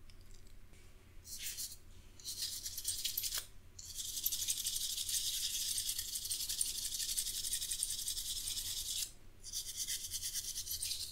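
A small brush scrubbing dust out of a laptop's blower fan, its bristles flicking rapidly over the fan blades and heatsink fins in a fast, scratchy rattle. It comes in bursts: a short one about a second in, one near two to three seconds, a long stretch from about four to nine seconds, then another after a brief pause.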